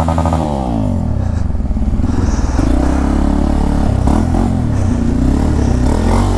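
Motorcycle engine running in slow traffic, as heard from the rider's seat. The revs fall off right at the start, then rise and dip again a few times with the throttle.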